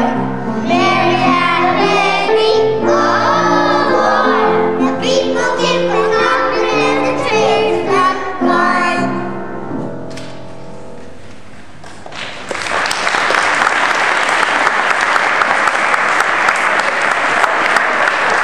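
Young children's choir singing the closing phrase of a song over held accompaniment notes. The last chord dies away about ten seconds in, and steady applause follows.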